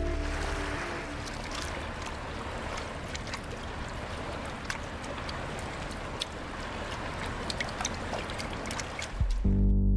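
Sea water splashing and sloshing, with many scattered sharp crackles and clicks. Low music comes in near the end.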